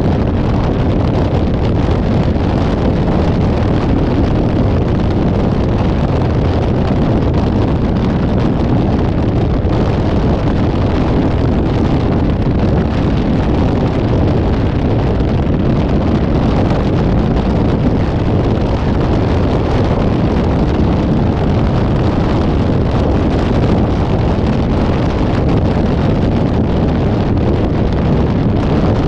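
Steady wind rush on the microphone of a camera riding on a moving vehicle, mixed with road noise, with no horn or other sudden sound standing out.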